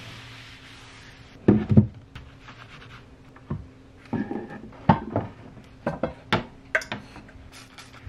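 Objects being set down and slid into place on a nightstand top: a string of short knocks and clatters, the two loudest about a second and a half in, after a brief soft rub of a hand or cloth on the surface at the start.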